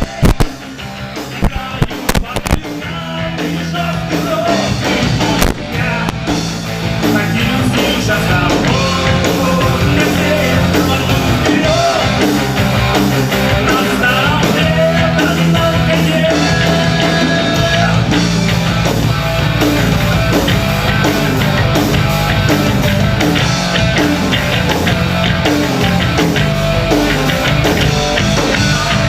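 Live rock band playing a song with guitar, bass and drums: sparse separate hits for the first few seconds, then the full band playing steadily and loudly.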